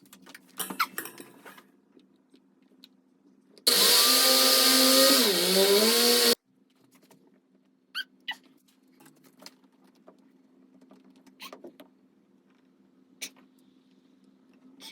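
A small electric motor runs for about three seconds in the middle, its pitch sagging briefly about halfway through as if under load, then stopping abruptly. Scattered light clicks and knocks come before and after it.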